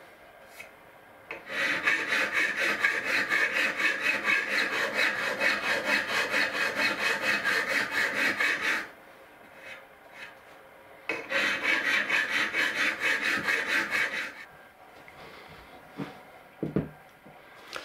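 Hand file rasping across the end of an aluminium bar held in a vise, filing a taper onto it, in rapid, even strokes: one long run, a short pause, then a shorter run. A couple of light knocks near the end.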